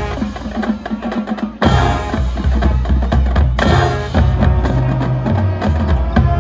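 Marching band playing its field show, full band over drums and percussion, with sudden loud accents about one and a half and three and a half seconds in.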